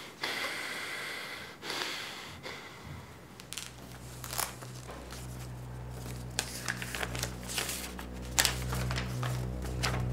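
Two heavy breaths, then a sheet of paper being handled and unfolded, crackling and crinkling in short irregular bursts. A low steady drone of the film score comes in about three seconds in underneath.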